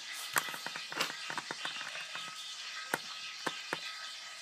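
A hairbrush being pulled in quick strokes through a doll's hair, giving a scratchy brushing noise with irregular light clicks and taps.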